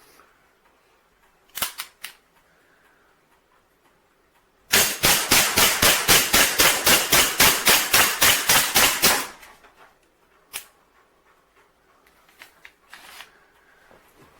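Umarex Colt Commander CO2 blowback BB air pistol firing a fast, even string of about twenty shots, roughly four a second, with the slide cycling on each shot. Before and after the string come a few single sharp clicks.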